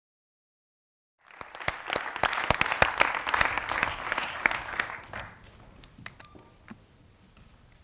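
Audience applauding. It cuts in about a second in and dies away over the next four seconds, leaving quiet room tone with a few faint knocks.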